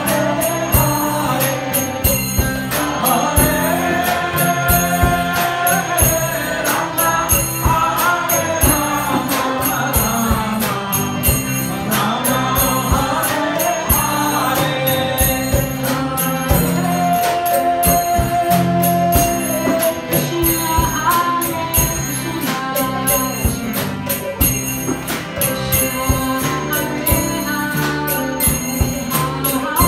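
Live kirtan music: voices singing a devotional chant over a band of drum kit, bass guitar, acoustic guitar and jingling hand cymbals, with a steady beat throughout.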